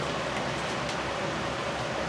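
Pot of beef curry chanko cooking on the stove: a steady hiss with a few faint pops.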